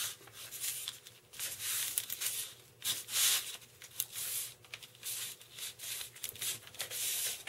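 Carbon rod being pressed by hand into a channel cut in a foam wing for a test fit: a string of irregular scraping, rustling strokes of hands and rod rubbing on the foam.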